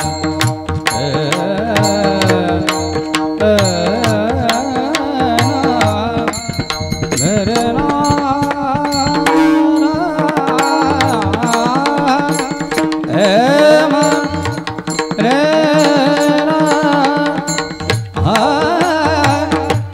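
Marathi devotional bhajan singing: a male voice holds long, ornamented, wavering notes over a steady held drone, with hand drums keeping an even beat.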